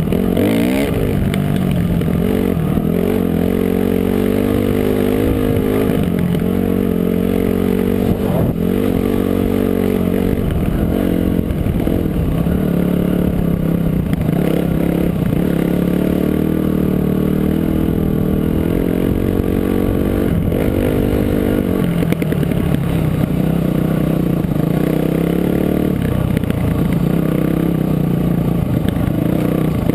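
Dirt bike engine running under load on a rough trail, its revs rising and falling again and again with the throttle.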